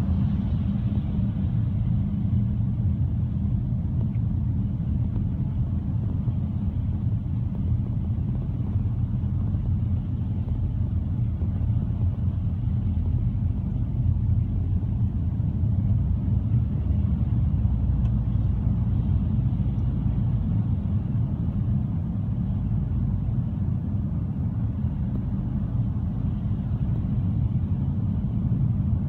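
Car driving, heard from inside the cabin: a steady, deep road-and-engine rumble with no distinct events.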